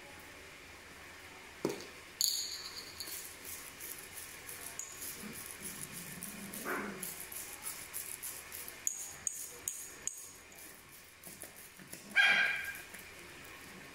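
Bottle pepper grinder twisted by hand, cracking peppercorns in a fast run of fine gritty clicks, then more scattered clicks. Near the end comes a short, loud, high-pitched yelp-like cry.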